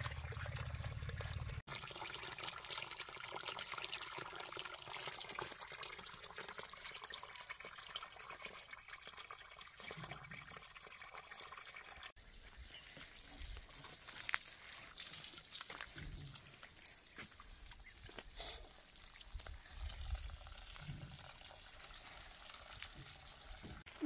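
Running water pouring and trickling, a steady hiss.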